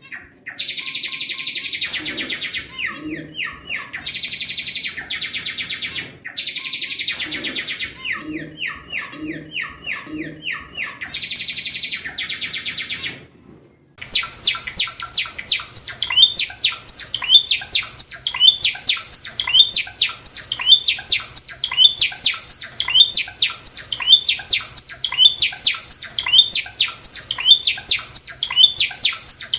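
Cinereous tit (gelatik batu) singing hard: high buzzy trills of a second or two alternate with quick series of chirps. About 14 seconds in the sound changes abruptly to a fast run of loud, sharp repeated notes, about three a second.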